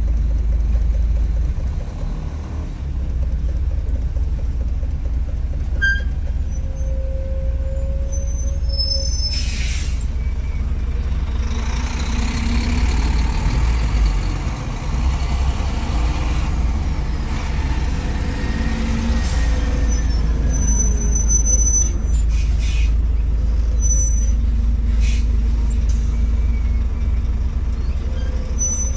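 Steady low rumble of slow stop-and-go road traffic heard from inside a car, engines and tyres of the surrounding cars and trucks, swelling for a few seconds in the middle. A few brief hisses cut through about a third and three quarters of the way in.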